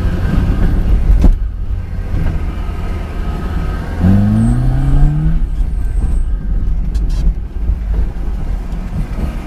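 Fiat Panda 4x4 engine heard from inside the cabin while driving on a dirt track, with a knock about a second in and the engine revving up, its pitch rising for about a second, around four seconds in.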